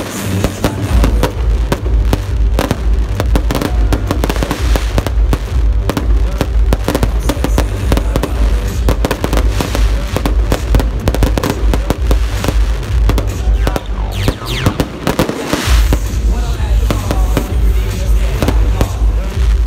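Dense aerial fireworks barrage: continuous rapid crackling and bangs with deep booms, with music playing underneath.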